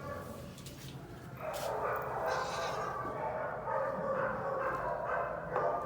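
A dog vocalizing in drawn-out, pitched sounds that start about a second and a half in and carry on to the end.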